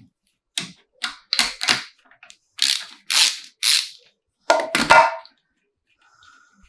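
A run of short, sharp mechanical bursts and clacks from tools and parts during an engine teardown, about ten in quick succession, the last two ringing slightly like metal.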